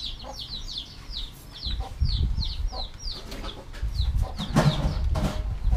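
Chicks peeping: a steady run of short, high chirps that fall in pitch, about four a second. A low rumble comes in about two seconds in, with two brief knocks near the end.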